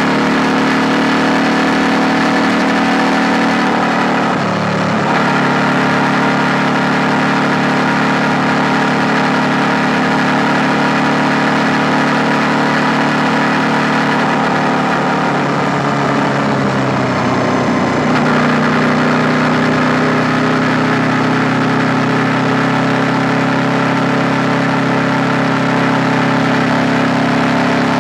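KTM 890 Duke R's parallel-twin engine running at steady, low revs while riding. Its note dips briefly about four seconds in, then slides down and settles at a new steady pitch around two-thirds of the way through.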